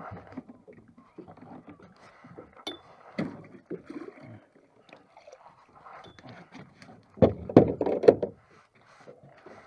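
Scattered knocks, clunks and clinks of gear being handled aboard a small wooden boat, with a louder run of several thuds about seven seconds in.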